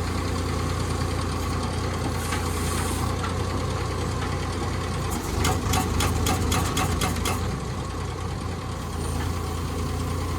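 R5 pile driver's engine running steadily. From about five to seven seconds in, a quick run of about ten sharp knocks sounds over it, roughly five a second.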